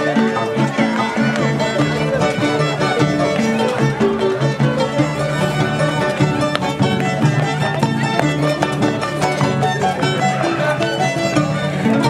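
Andean folk tune played on violin with harp accompaniment, the harp's bass notes repeating steadily under the violin melody.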